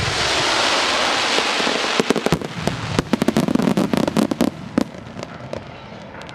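Starmine fireworks barrage: a dense hissing rush for about two seconds, then a rapid run of sharp bangs and crackles that thins out and fades near the end.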